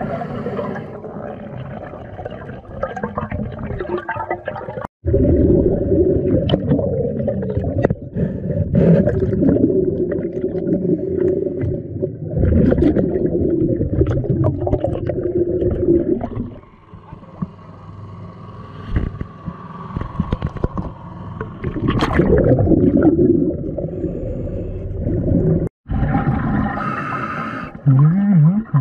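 Muffled underwater sound of a diver, with bubbling and gurgling; it cuts out abruptly twice, about five seconds in and near the end.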